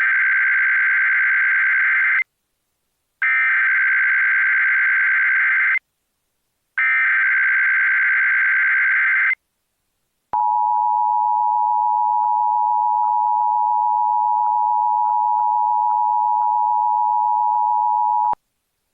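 Emergency Alert System tones: three identical bursts of SAME header data, each a harsh digital warble about two and a half seconds long with a short gap between, followed by the EAS two-tone attention signal, a steady dual tone held for about eight seconds and then cut off.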